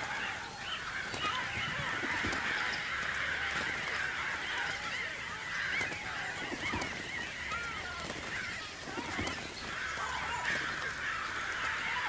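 A large flock of birds calling over one another in a steady, unbroken din of many overlapping calls, played as a stage sound effect of the attacking birds.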